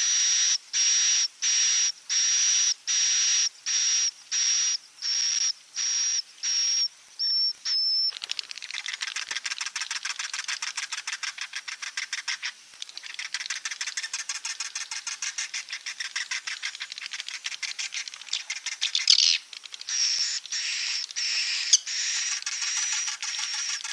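Edible-nest swiftlet roosting call, the kind of recording played to lure swiftlets into nesting houses. It opens with a string of high, thin chirps about two a second, then turns into a long, rapid twittering chatter with a louder burst near the end, and the spaced high chirps come back for the last few seconds.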